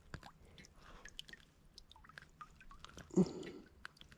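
Faint, scattered small clicks, drips and wet squishes from handling a freshly landed largemouth bass and the wet tackle, with one short, louder thump about three seconds in.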